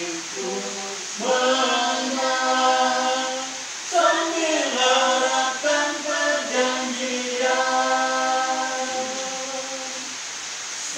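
A small choir singing unaccompanied in harmony, several voices holding long notes together in phrases with short breaths between them.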